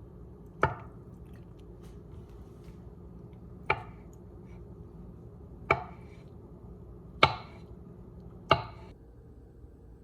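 Five slow, unevenly spaced knife chops on a cutting board, each a sharp knock with a short ring, over a low steady hum.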